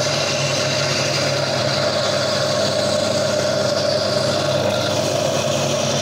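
Gryphon diamond bandsaw running steadily as its blade cuts through the stony skeleton of a Lobophyllia coral: a constant motor hum with a hiss from the cut.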